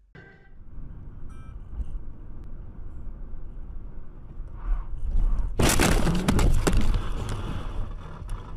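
Low rumble of a moving vehicle, then about five and a half seconds in a loud car collision: a burst of crunching and cracking that lasts about two seconds and then fades.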